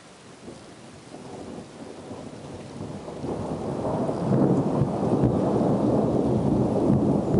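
Thunder rumbling, swelling from faint to loud over the first four seconds and staying loud, over a light hiss of rain.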